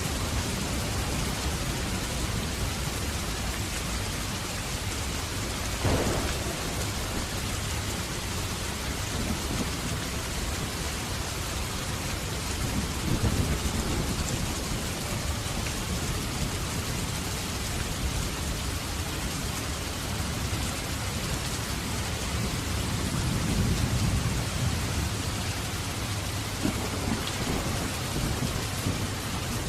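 Steady heavy rain falling, with thunder: a sharp crack about six seconds in and low rolling rumbles around the middle and again near the end.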